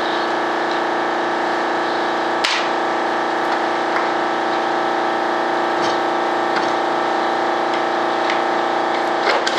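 Air compressor running steadily, with a sharp crack about two and a half seconds in and a few lighter clicks from a moulded resin duct part being handled.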